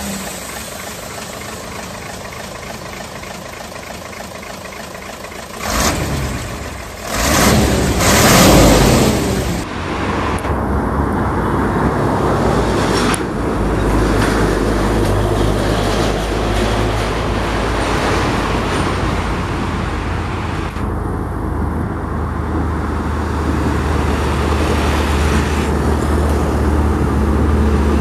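For about the first ten seconds, a truck engine revving up hard twice. Then a loaded Hino truck's diesel engine runs steadily as the truck comes up the road towards the microphone, a low drone that grows louder near the end.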